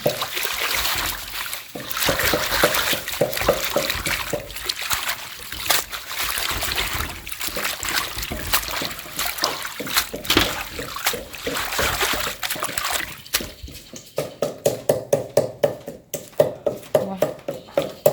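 Hands splashing and sloshing in a bowl of water as food is washed. About 14 s in this gives way to a fast, regular series of sharp knocks, about four a second.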